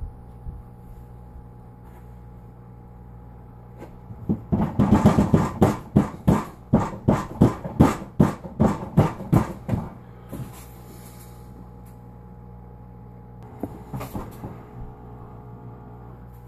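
Hands slapping and patting a sheet of fresh pasta dough against a countertop: a quick run of sharp slaps, about three a second, for around five seconds starting about four seconds in, then a few lighter taps near the end.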